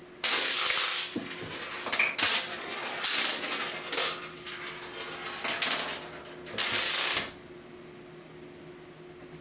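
A small hard toy skittering and rattling across a plastic shower floor as a cat bats it around with its paws, in about seven quick runs, the longest near the start and near the end.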